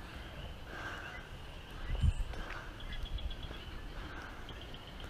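Walking outdoors with a handheld camera: a low wind rumble on the microphone, soft steps and breaths, and a bird's faint rapid chirping trill twice.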